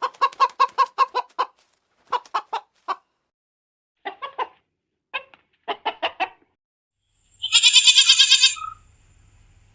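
Chicken clucking in several quick runs of short notes, then a louder, higher, shrill call lasting about a second near the end.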